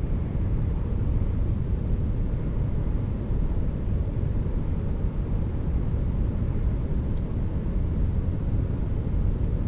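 Steady low rumbling noise with no distinct events, no tones and no clicks.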